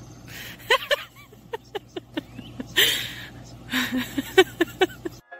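Water being lapped and slurped from a stainless steel bowl: a string of short wet plips and clicks at an uneven pace, with a few noisier splashing patches.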